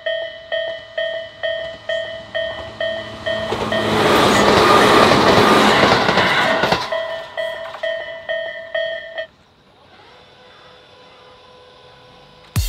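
Japanese level-crossing warning bell ringing its kan-kan strikes, about two a second, while a Tobu Isesaki Line train passes through with a loud rush of wheels on rail that swells and fades over a few seconds. The bell stops about nine seconds in once the train has cleared, leaving faint steady background noise.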